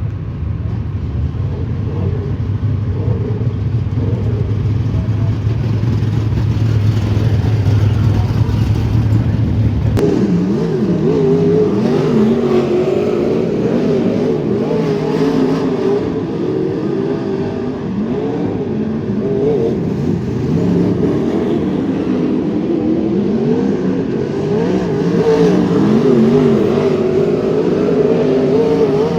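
Wingless sprint car engines during hot laps. For about ten seconds there is a steady low engine drone; then, after an abrupt change, the engines rev up and down, their pitch rising and falling as the cars lap.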